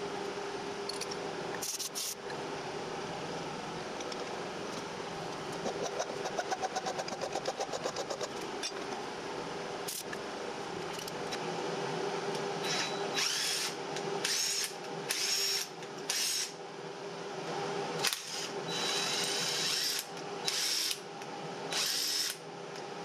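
Steady background hum, then from about halfway through, a DeWalt cordless drill run in short trigger bursts about once a second, turning a tap via a socket on the tap handle to cut half-inch threads into a steel bolt held in a vise.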